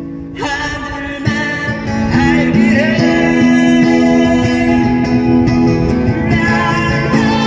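Live acoustic music: guitar with a singing voice holding a melody. The music dips for a moment at the start, picks up, and grows louder about two seconds in.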